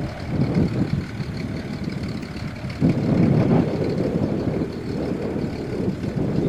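Cessna Agwagon topdressing plane's piston engine running steadily, partly drowned by gusts of wind buffeting the microphone, which swell loudest around the middle.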